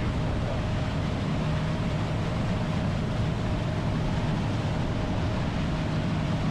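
Boat's outboard engine running at steady speed under a constant rush of wind and water.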